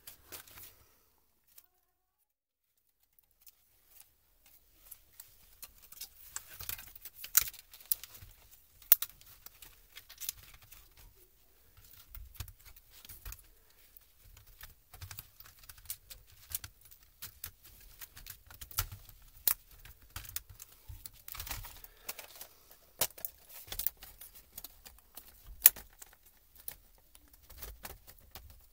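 Hands handling a laptop keyboard in its plastic palmrest frame with a thin metal backplate: irregular sharp clicks, taps and light rattles with some rustling. It begins after a few near-silent seconds.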